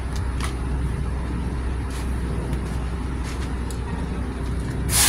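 Hyundai D6CA straight-six diesel truck engine idling steadily with a low hum, just started after a hard-starting fault that was traced to a sensor wire. Near the end a short, loud burst of hissing air cuts in.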